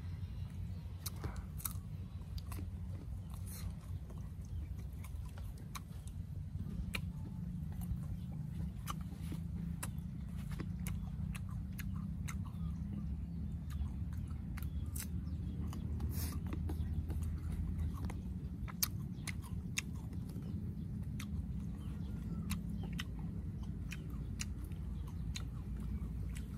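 A person biting and chewing crisp raw fruit slices close to the microphone: many short wet crunches and clicks over a steady low rumble.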